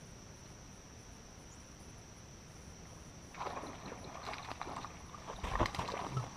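A steady high insect trill; a little over three seconds in, irregular knocking and rustling start, with a low thump about two seconds later, as a bass that has just struck is fought in from the deck of a bass boat.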